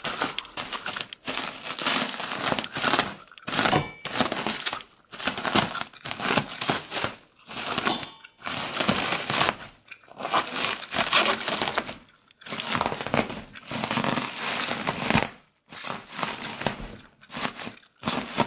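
Packaging being crumpled and torn open around a cushion: crinkling and ripping in bursts of a second or two with brief pauses between them.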